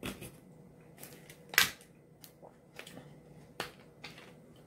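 Short, sharp mouth smacks and clicks from close-up chewing, about seven spread over four seconds, the loudest about a second and a half in, with a crackle of a plastic water bottle being handled near the end.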